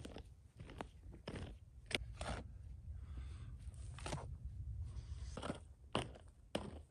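A series of short crunches and scrapes at uneven intervals, over a steady low rumble.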